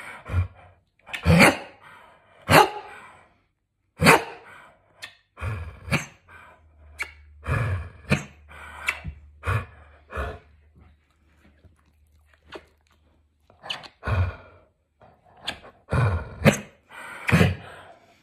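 Elderly dog barking and yowling in short, irregular outbursts, a vocal protest at being kissed and cuddled.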